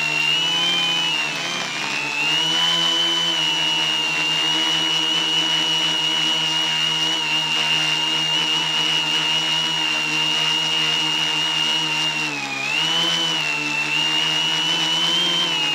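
Quadcopter's electric motors and propellers whining steadily, heard from the camera mounted on the craft. The pitch dips and recovers as the motor speeds change, about a second in and again about twelve seconds in.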